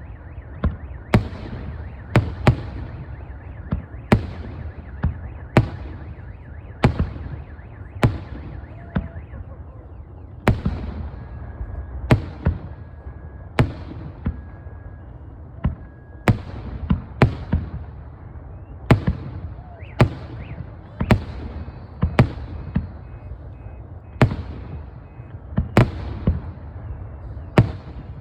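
Aerial firework shells bursting in a steady barrage, a sharp bang about once a second and sometimes two close together, each trailing off in an echo over a continuous low rumble.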